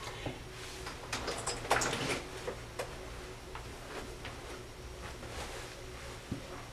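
Soft rustling and a few small clicks as a person gets up from an office chair and moves away, loudest about two seconds in. After that come sparse faint ticks over quiet room tone.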